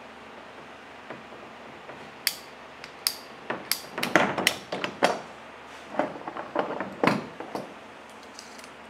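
Hand-held PVC pipe cutter squeezed in repeated strokes, clicking and crunching as its blade bites through a length of white PVC pipe. The clicks come in two clusters, about four seconds in and about six to seven seconds in.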